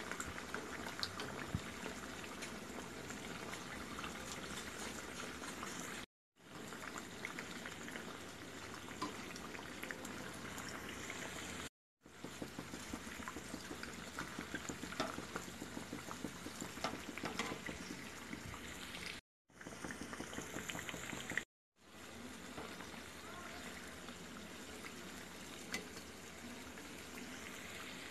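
Kakara pitha deep-frying in hot oil: a steady sizzle and bubbling with small sharp crackles, as the pithas puff up and float. The sound drops out abruptly to silence a few times for a moment.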